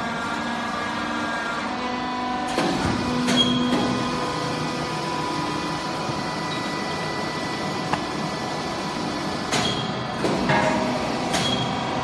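Hydraulic baler's power unit running with a steady, many-toned hum while the press cycles, with a few sharp knocks about two and a half seconds in and again in the last couple of seconds.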